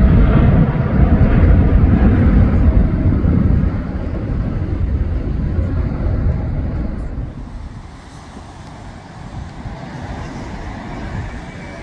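Jet engine noise of a twin-engine airliner climbing away after takeoff: a loud, low rumble that fades steadily, dropping off around four seconds in and again around seven to eight seconds in as the aircraft recedes.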